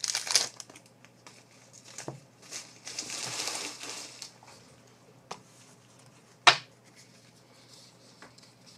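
Trading-card pack wrapper crinkling as it is torn open, with a longer rustle about two and a half seconds in. A few small clicks follow, and one sharp click about six and a half seconds in.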